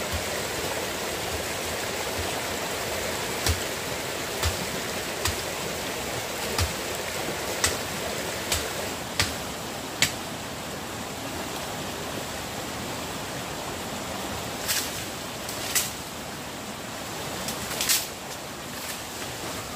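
Steady rush of a rocky forest stream, with about a dozen sharp snaps of twigs and dry stems breaking, spaced about a second apart at first and more scattered near the end, as someone moves through a bamboo thicket.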